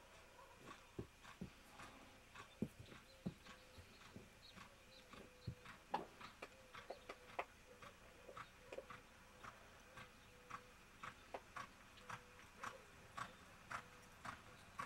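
Faint hoofbeats of a Quarter Horse mare on soft arena dirt as she is ridden at a jog and lope: soft thuds and clicks, uneven at first, then settling to a steady beat of about two a second.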